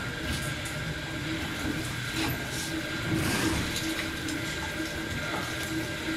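Electric meat mincer motors running with a steady hum, with a few faint clicks and knocks.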